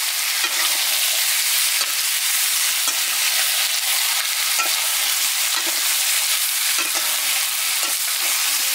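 Raw chicken pieces and green chillies sizzling in a hot iron karahi while a flat wooden spatula stirs them, scraping across the pan about once a second over a steady frying hiss.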